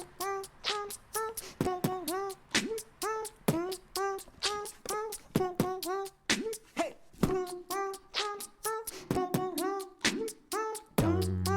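Background music with a fast percussive beat and short, repeated pitched vocal-like notes; a deep bass line comes in near the end.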